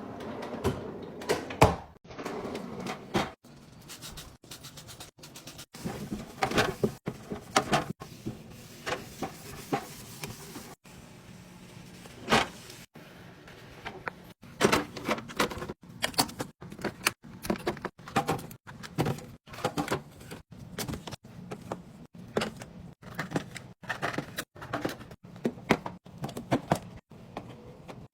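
Repeated clacks, taps and rustles of packaged snacks and plastic fridge bins being handled and set into place while a fridge snack drawer is restocked, with abrupt breaks between short clips.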